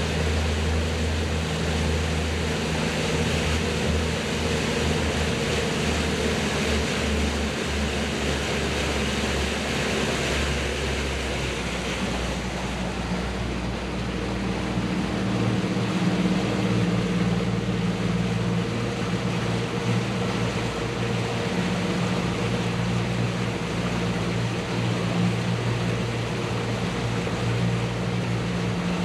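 A motorboat's engine runs steadily under way, with the rush of water and wind over it. About twelve seconds in, its note shifts and settles at a slightly higher pitch.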